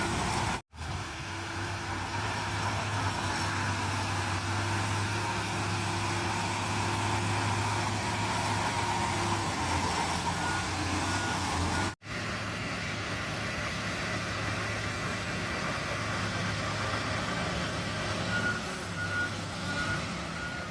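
Komatsu bulldozer's diesel engine running steadily under load. The sound cuts out briefly twice. A reversing alarm beeps in an even series near the end.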